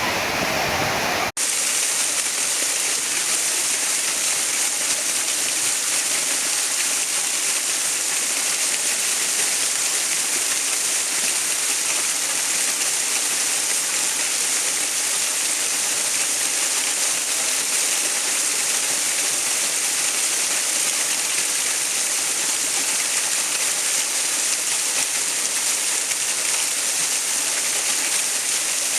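Steady rushing water, an even hiss with little low rumble. About a second in there is a sudden cut with a brief dropout, and after it the water sounds brighter and thinner.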